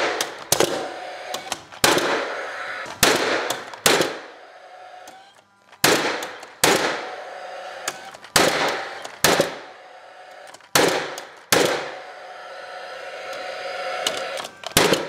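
Paslode cordless framing nailer firing nails through a doubled wooden window sill, about a dozen sharp shots, mostly in pairs a little under a second apart. A short whir fades after each pair of shots.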